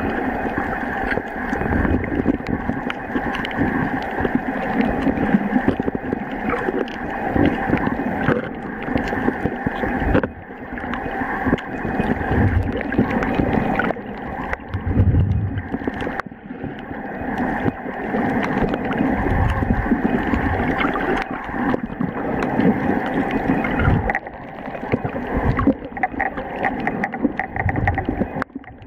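Muffled underwater water noise picked up through a submerged waterproof camera's microphone: a steady dull rumble and wash of moving water, with occasional low thumps and a few brief dips.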